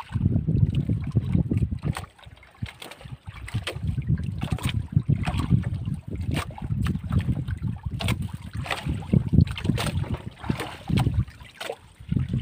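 Wind buffeting the microphone in uneven low gusts, with small clicks and rustles of hands handling fishing line and a stone sinker.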